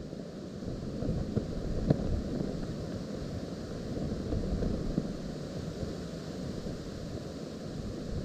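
Strong wind buffeting the microphone, a low gusty rumble that grows louder about a second in, with a loose shawl and dress flapping in the gusts and a sharp snap near two seconds.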